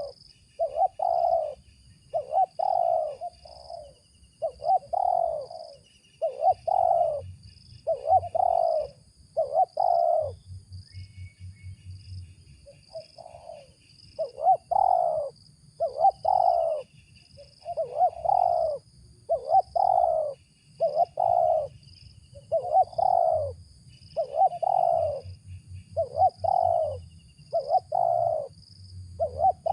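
Spotted dove (tekukur) cooing over and over, low coo notes coming about one a second in runs, with a pause of a few seconds about ten seconds in. Faint high trilling, likely insects, runs behind it.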